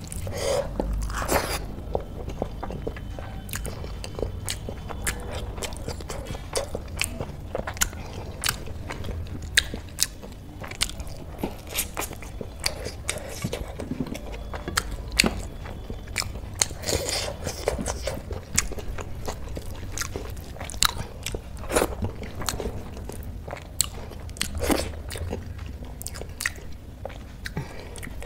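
Close-miked eating: steady chewing with many sharp, crisp crunches and mouth clicks scattered irregularly throughout.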